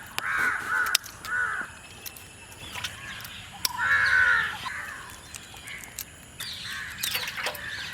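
Crows cawing in several separate bouts of calls.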